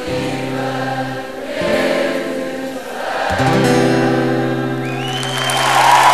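A crowd singing along with a male singer and acoustic guitar, holding long notes on the last lines of a song. Applause and cheering start to swell near the end.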